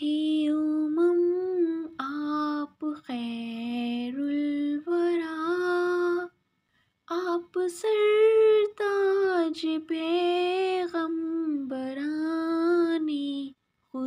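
A woman singing an Urdu naat alone, in long held notes with slow glides between them. There is a pause of about a second a little after the middle.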